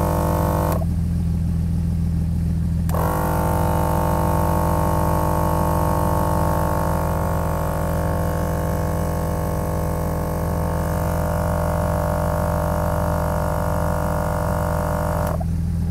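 Dual-cylinder mini air compressor running steadily as it inflates an off-road tire, a low even drone, with the Jeep's engine idling under it. Background music plays over it, dropping out briefly about a second in and coming back about three seconds in.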